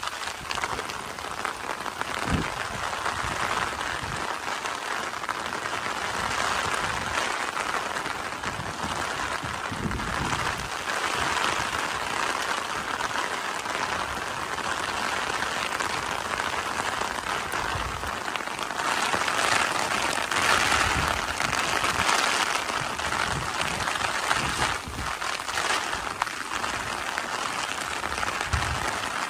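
Steady summer rain: a dense, even patter of raindrops that grows a little heavier for a few seconds past the middle.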